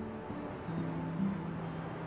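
Background music: soft, sustained low notes, one held note starting under a second in.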